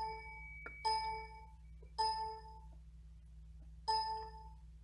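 An electronic chime dings four times at uneven gaps, each ding a pitched tone with overtones that fades over about half a second, over a steady low hum. There is a light click a little under a second in.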